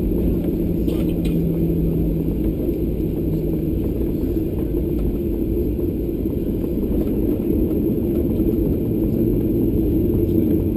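Cabin noise inside a Boeing 737-800 taxiing on the ground: its CFM56-7B engines at idle give a steady low rumble. A low hum in it fades out about a third of the way through.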